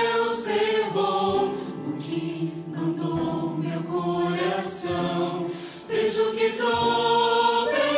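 A choir singing slow, held chords as a solemn choral score. It thins briefly near the six-second mark, then swells again.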